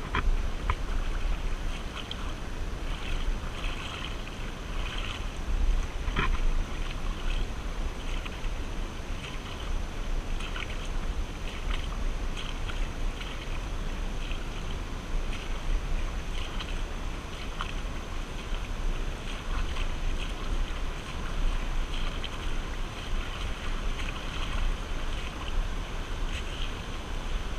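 Shallow creek water running and splashing over riffles, with wind rumbling on the microphone.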